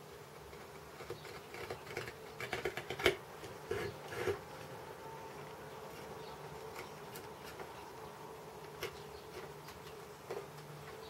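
Chip-carving knife cutting into wood: short scratchy cuts, a quick run of them two to three seconds in and a few single ones later. Underneath is a steady low hum.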